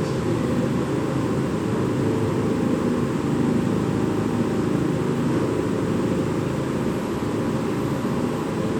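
Steady low hum and hiss of ventilation or air-conditioning machinery, with a few faint steady tones and no distinct events.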